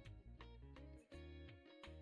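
Quiet outro music with a low bass line and a steady percussive beat.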